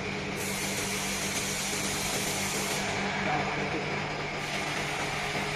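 Steady machinery hum under an even hiss, with a higher rushing hiss that starts about half a second in, drops out near three seconds and comes back past four seconds.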